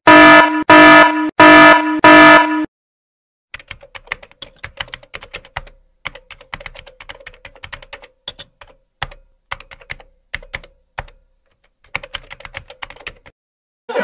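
An alert-buzzer sound effect buzzes loudly four times in quick succession. After a short gap, a computer-keyboard typing sound effect clicks rapidly and unevenly in spurts, stopping just before the end.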